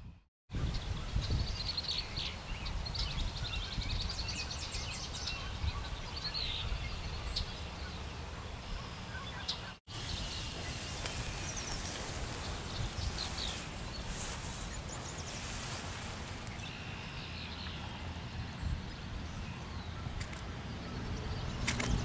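Marsh ambience: a steady low rumble of wind on the microphone, with small birds chirping and twittering on and off. The sound drops out briefly twice.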